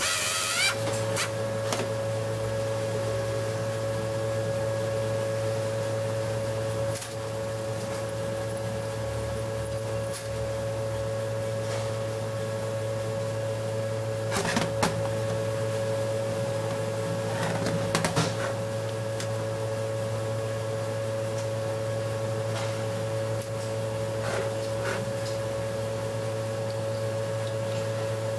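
Steady machine hum, with a few sharp metallic clinks as parts of an automatic transmission valve body are handled on a steel bench.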